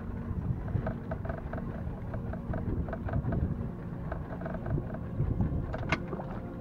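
Boat running at sea: a steady low rumble with an engine hum, overlaid by runs of light, quick ticks and one sharper click about six seconds in.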